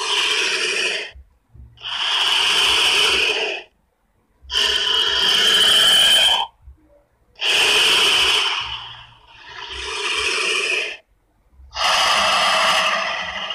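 Giant-serpent monster sound effects: a series of six rasping, breathy hisses, each lasting one to two seconds, with short pauses between.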